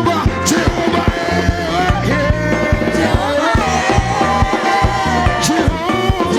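Church praise-and-worship band music with a steady drum beat and bass line under a held melody line, with a few cymbal crashes.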